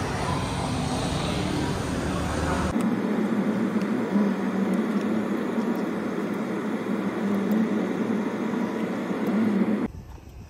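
A few seconds of busy, noisy ambience cut abruptly to steady car noise from a vehicle moving slowly through a car park, which stops shortly before the end.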